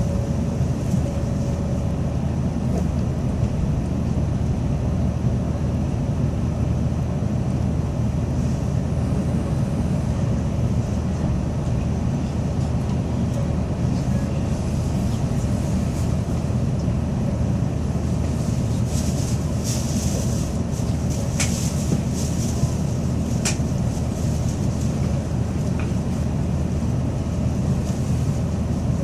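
Tokaido Shinkansen Kodama train running, heard from inside the passenger cabin: a steady low rumble, with a swell of hiss and a few sharp clicks about twenty seconds in.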